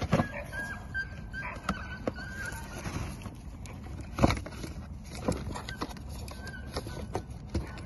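Cardboard firework box being handled and opened on a hard floor: irregular knocks, taps and scrapes, the loudest knock about four seconds in.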